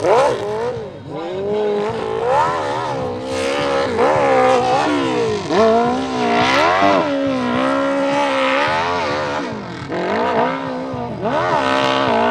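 Open-class hill-climb motorcycle engine revving hard, its pitch climbing and dropping again and again as the throttle is opened and chopped.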